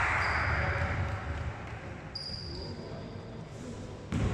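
Basketball game on an indoor court: a ball bouncing and short high sneaker squeaks on the floor, with a sharp knock about four seconds in. Crowd and voice noise fades away over the first second.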